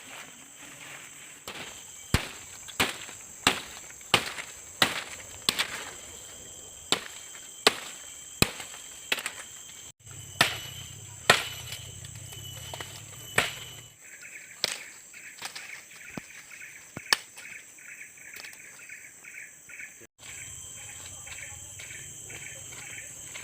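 Steady high-pitched chorus of evening insects, with a run of sharp knocks roughly every second through the first two-thirds. Toward the middle a rapid pulsed chirping joins in for several seconds.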